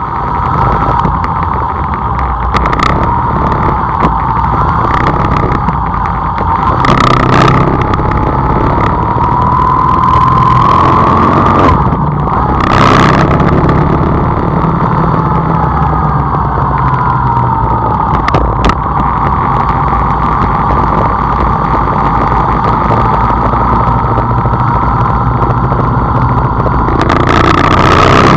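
A vehicle engine running steadily, its pitch slowly drifting up and down as the speed changes, with a couple of short bursts of noise about a third and halfway through.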